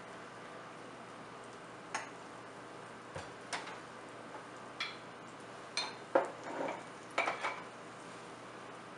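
Kitchen utensils clinking and tapping against dishes: about a dozen short, sharp clicks and knocks, bunched most densely near the middle and loudest around the six-second mark, over a faint steady hiss.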